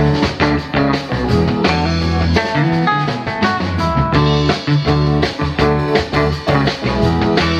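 Live rock band playing an instrumental jam: guitar over a steady bass line and drums.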